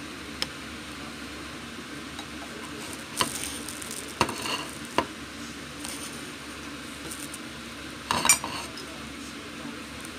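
Wooden chopsticks clicking against a pot of oil heating for deep-frying, over a steady low hiss. There are a few sharp clicks spread apart, with the loudest cluster about eight seconds in.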